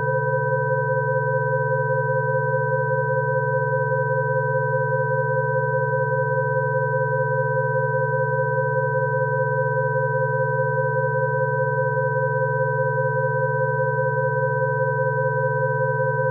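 Rife frequency tone track: several steady electronic sine tones sounding together, a low hum beneath a few higher pure tones. The tones hold unchanged in pitch and loudness, with a slight warble in one of the middle tones.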